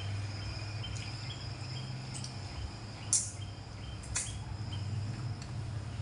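Faint insect chirping, likely crickets, over a steady low hum. Two short, sharp mouth clicks of eating sound about three and four seconds in.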